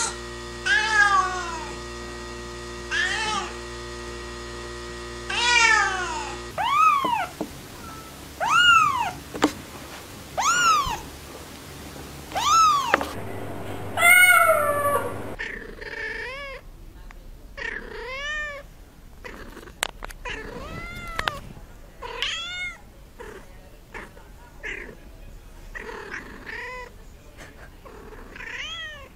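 Domestic cats meowing over and over, one clip after another: a loud meow every second or two, with a change of cat about six seconds in and again about halfway through.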